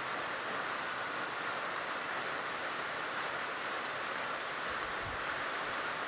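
A steady, even hiss with no bird calls.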